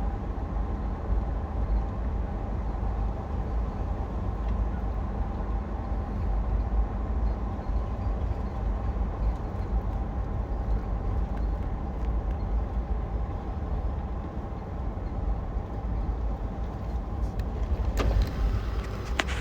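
2007 Lexus GX470 on the move, a steady low rumble with a faint steady tone above it: the front-end squeaking noise that remains after both front wheel bearings and hubs were replaced. A few sharp clicks near the end.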